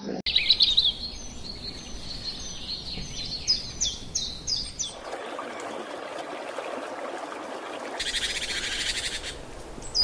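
High-pitched chirping calls, repeated many times over the first half, followed by an even hiss and then, about two seconds from the end, a fast buzzing trill.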